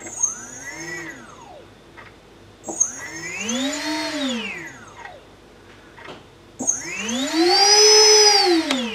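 Sunnysky brushless motor driven by an EMAX 12A ESC from a servo tester, spun up and back down three times, each run higher and louder than the last, as a whine that rises and falls in pitch. The ESC is working despite its dodgy-looking solder job.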